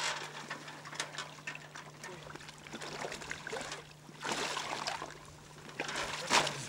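Boots wading through shallow icy floodwater, splashing and sloshing in uneven steps, with a few sharp clicks among them.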